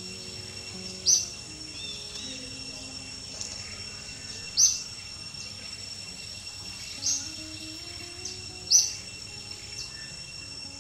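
Steady high-pitched insect drone, with four short, sharp high chirps about two to three seconds apart standing out as the loudest sounds. Faint background music runs underneath.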